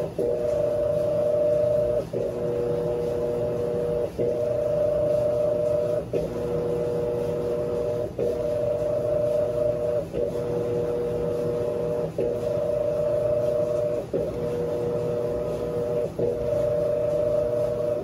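Electrolux LAC17 top-load washing machine agitating a heavy load of blankets: a steady two-note motor hum that breaks off briefly about every two seconds as the impeller reverses direction.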